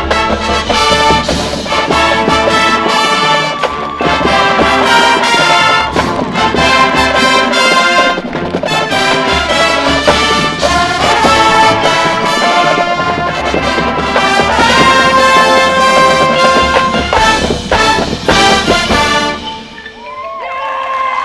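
High school marching band playing loudly, brass over drums, up to a final cut-off about 19 seconds in. The crowd starts cheering and whistling just after.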